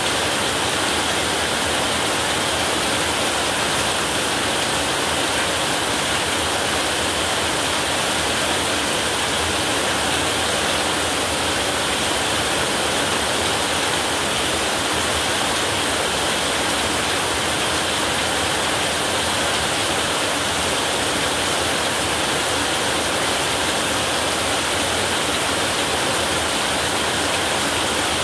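Heavy rain falling steadily on a roof, an even, unbroken hiss.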